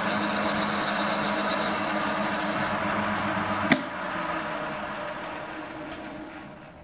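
CQ9325 benchtop metal lathe running steadily, then a sharp click a little over halfway through as it is switched off, after which the motor and spindle wind down and fade out.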